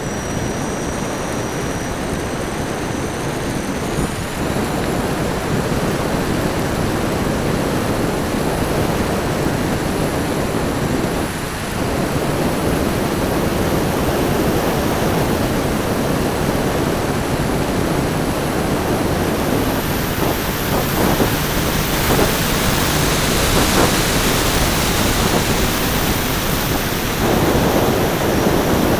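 Airflow rushing over the microphone of a wing-mounted camera on a flying radio-controlled Transall C-160 model, with the thin high whine of the model's motors and propellers behind it. The whine climbs in pitch a little past the halfway point.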